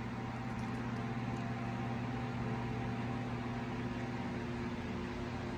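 Steady mechanical hum of a running household appliance motor, such as a fan or air conditioner, holding one even pitch throughout.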